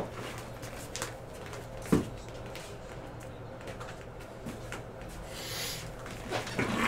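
Quiet room with light handling noises on a desk: one sharp knock about two seconds in, a few faint clicks, and a soft rustle shortly before the end.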